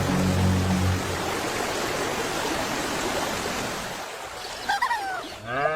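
Steady rushing hiss of rain that fades away about four seconds in, with a brief low hum during the first second. Near the end come a few short pitched calls that rise and fall.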